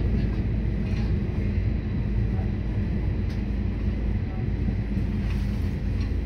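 Stadler GTW-D diesel railcar running, heard from the passenger cabin: a steady low engine drone with rail rumble underneath. A few light clicks are heard along the way.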